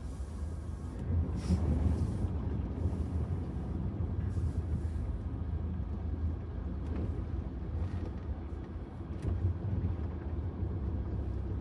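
Range Rover Evoque driving slowly through shallow water, heard inside the cabin: a steady low engine and road rumble, with water swishing under the car in short surges during the first few seconds.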